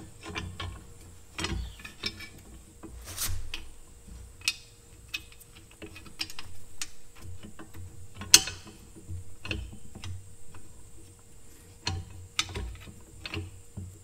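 Metal clicks, clinks and knocks as the cast-iron linkage and pins of a restored Dempster windmill pump head are fitted together by hand, irregular throughout, with a sharper knock about eight seconds in and another about twelve and a half seconds in.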